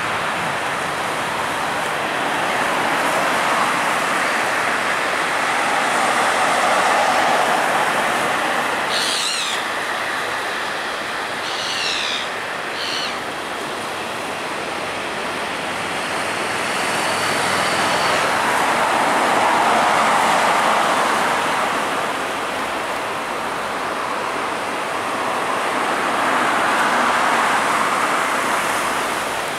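Jet engines of a Boeing 777-200 running at taxi power, a steady rushing noise that swells and fades a few times. A few brief high chirps cut through about nine and twelve seconds in.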